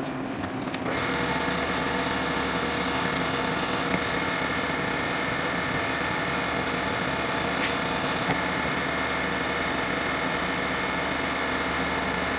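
Milling machine spindle running with a small cutter, a 3/16 inch end mill or drill, cutting an aluminium block. A steady whine that steps up about a second in, with a few faint ticks.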